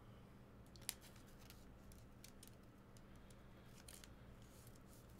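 Near silence: a low steady room hum with a few faint, short, sharp clicks, the clearest about a second in and a few more near the end.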